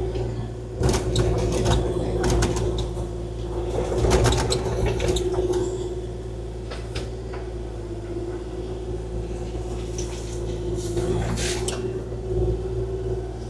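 Kubota KX040-4 mini excavator's diesel engine running with a steady hum, with scattered knocks and scrapes as the bucket works rock.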